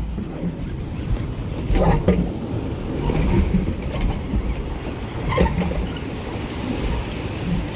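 Wind buffeting the microphone over choppy sea water slapping against a kayak's hull, with sharper slaps about two seconds and five and a half seconds in.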